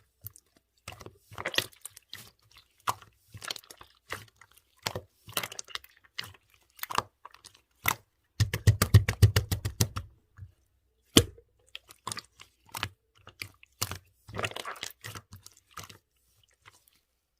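Light-green clear slime being squished and pressed by hand, giving a stream of sharp clicks and crackles. There is a fast run of louder clicks between about 8 and 10 seconds in, and the sounds stop shortly before the end.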